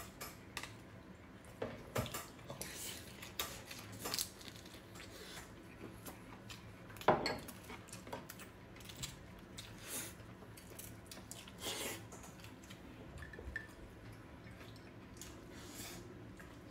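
Tableware clinking and tapping during a meal: a metal spoon scraping a plastic food container, and chopsticks knocking against bowls and plates in scattered light clicks. One louder knock comes about seven seconds in.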